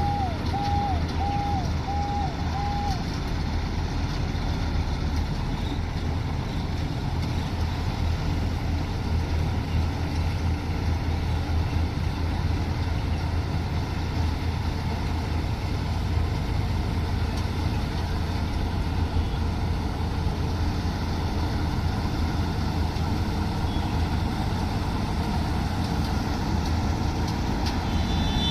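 Combine harvester running steadily under load, a loud low engine drone with a broad mechanical rush over it. In the first three seconds a reversing alarm beeps about twice a second, then stops.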